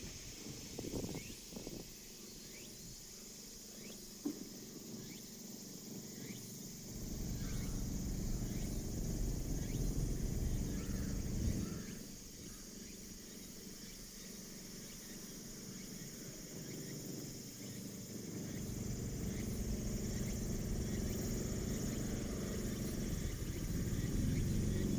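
Outdoor ambience: a steady high hiss of insects, with a low rumble that swells twice, and a few faint clicks in the first seconds.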